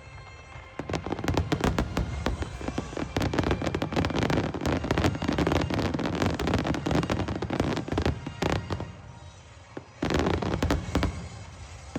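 Aerial fireworks exploding in a rapid barrage of booms and crackles. They ease off for a couple of seconds about two-thirds of the way through, then another burst follows.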